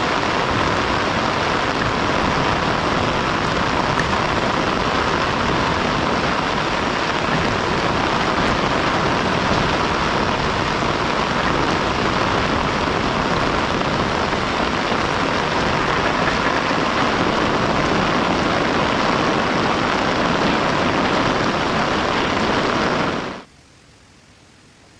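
Heavy rain falling steadily, a dense even hiss that cuts off abruptly about a second and a half before the end, leaving only a faint hiss.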